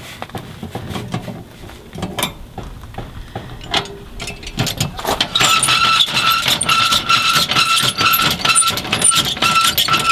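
Metal clinks and knocks from handling a trailer stabilizer scissor jack, then about five seconds in a power drill starts spinning the jack's screw with a steady whir and fast rattle, lowering the jack until it stops near the end.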